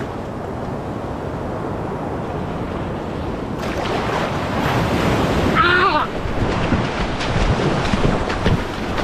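Shallow ocean surf washing and foaming in the shore break, with wind on the microphone. A brief high, wavering cry cuts through a little before six seconds in.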